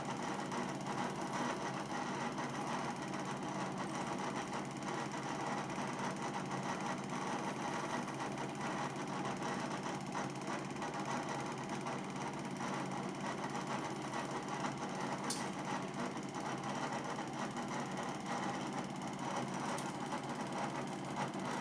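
Cine film projector running: a steady, fast mechanical clatter from the film transport, with one short click about fifteen seconds in.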